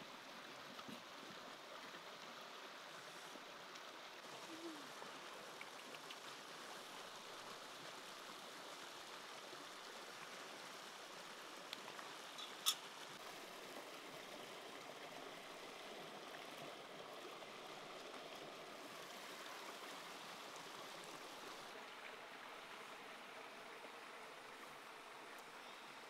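Faint, steady running water of a small stream. A single sharp click about halfway through.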